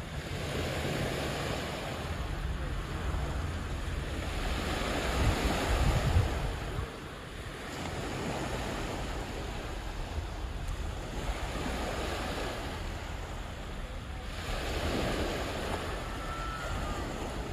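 Waves washing onto a shore in surges that swell and fade every few seconds, the strongest about six seconds in, with wind buffeting the microphone.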